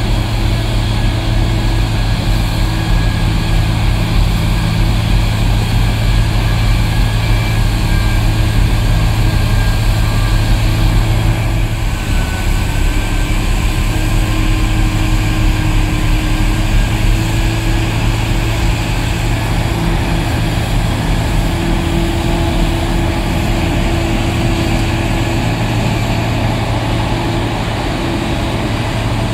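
Larue snow blower on a wheel loader and a dump truck's diesel engine running steadily while the blower throws snow into the truck box. The engine note shifts slightly about twelve seconds in.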